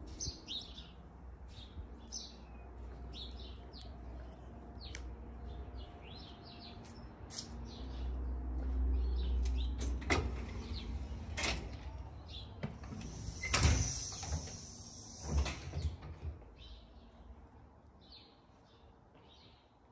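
Small birds chirping throughout. About ten seconds in, a key clicks in the lock of a metal security screen door and the door is opened, with several sharp clunks and a scraping hiss over a few seconds.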